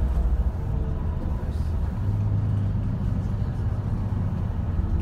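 Low, steady rumble of engine and road noise from inside a moving vehicle on a highway. A deeper hum strengthens about two seconds in.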